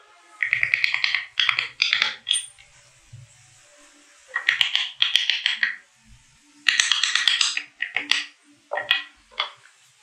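Wooden mallet striking a carving chisel driven into a hardwood block, cutting along a traced outline. The blows come in short runs of quick taps with pauses between: about two runs in the first couple of seconds, then more from about four seconds in to near the end.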